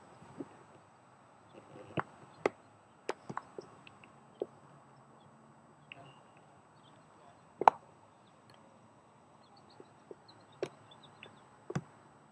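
Handling noise from a handheld phone camera: scattered, irregularly spaced sharp clicks and knocks over a faint steady hiss, the loudest knock a little past halfway.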